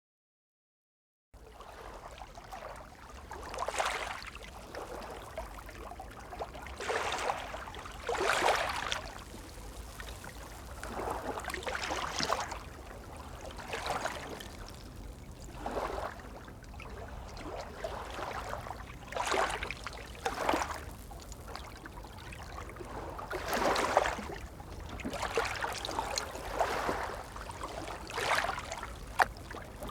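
Small waves of a calm sea lapping and washing, with a soft splash every second or two over a low steady rumble. It starts after about a second of silence.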